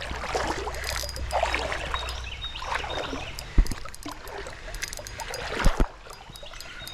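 Creek current running and splashing, with two short low thumps, about halfway through and near the end.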